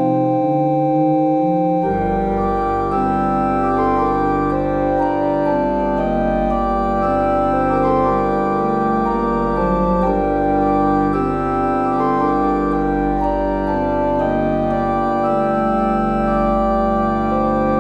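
Background music played on an organ-like keyboard: sustained chords with a melody on top, a deep bass line coming in about two seconds in.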